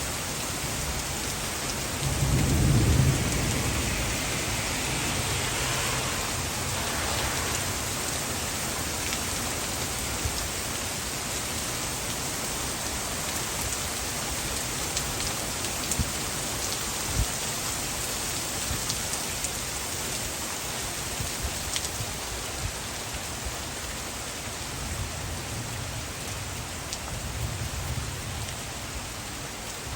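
Heavy thunderstorm downpour hissing steadily, with a loud roll of thunder about two seconds in and a fainter rumble near the end. A few sharp taps land in the middle.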